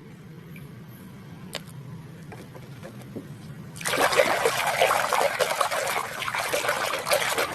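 Water running and splashing as a muddy plastic toy is rinsed clean, starting suddenly about four seconds in after a quiet stretch with a single click.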